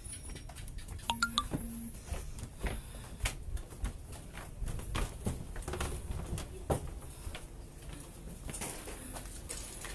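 Irregular footsteps with scattered small knocks and clinks, over a low rumble.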